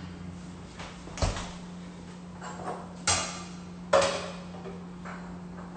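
Kitchen utensils and containers knocking against the counter as they are cleared away: three sharp knocks, about a second in, at about three seconds, and just before four seconds, over a steady low hum.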